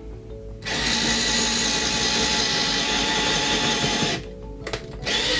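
IKEA FIXA 7.2 V cordless drill/driver drilling into a block of wood under load: the motor runs steadily with a whine for about three and a half seconds, stops, then starts again briefly near the end. It is struggling but getting through.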